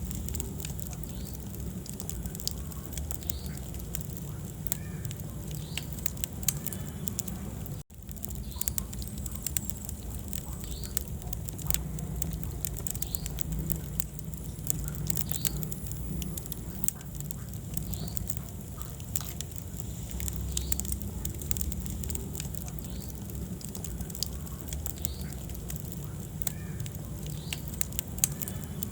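Wood fire crackling, with frequent small, irregular pops and snaps over a steady low rumble of the flames. The sound cuts out for an instant about eight seconds in.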